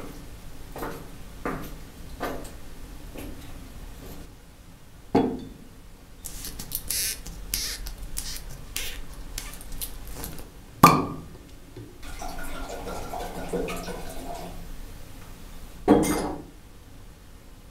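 Footsteps on stone stairs, then a corkscrew squeaking as it twists into a wine bottle's cork, the cork pulled out with one sharp pop. Wine is poured into a glass, and the bottle is set down with a thud.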